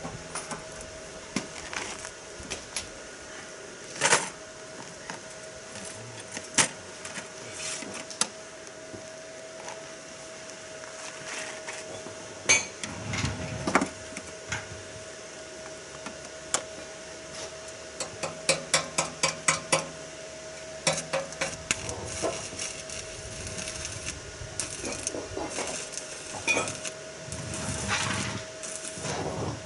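Metal clinking and knocking under a car as tools work against its underside: scattered single knocks, then a quick run of about eight light taps a little past halfway, over a steady faint hum.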